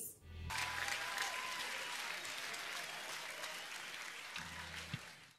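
A live concert audience applauding, a dense steady clapping that slowly weakens and fades out near the end.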